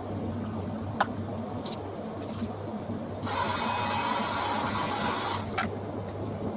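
A small electric motor runs for about two seconds, starting and stopping abruptly a few seconds in, over a steady low hum. There are a few light clicks.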